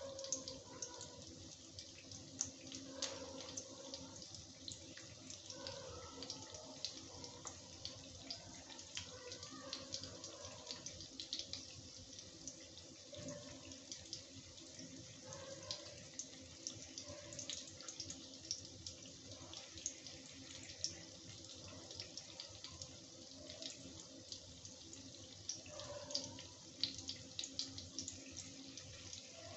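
Paneer cubes sizzling in hot mustard oil in a kadai: a faint, steady hiss with frequent small crackles and pops.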